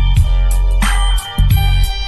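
Sony smartphone ringtone playing: a rhythmic tune of short bright notes over a heavy bass line, with the bass dropping out briefly a little past the middle.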